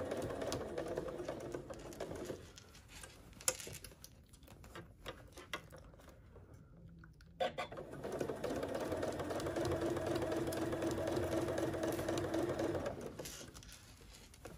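Electric sewing machine stitching a seam in two runs. It sews for about two seconds, then stops for about five seconds of soft clicks while the fabric is repositioned. It then sews steadily again for about five seconds and stops near the end.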